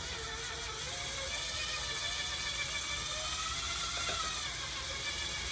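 Electric mixer running steadily on low speed, beating eggs in a bowl. Its motor hum wavers a little in pitch.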